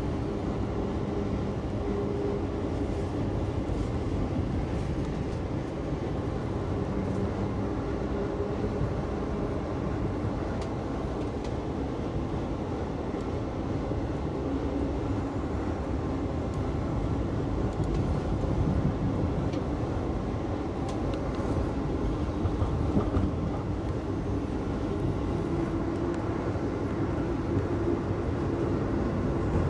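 Steady running noise of a moving Amtrak passenger train heard from inside the coach: the rumble of the wheels on the rails and the car's ride noise, with a faint hum.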